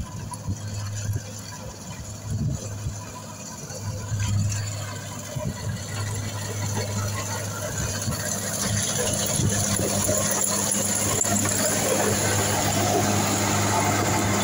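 Tracked rice combine harvester running as it cuts paddy: a steady engine drone with the hiss of its cutting and threshing machinery, getting louder from about halfway through as it comes up close.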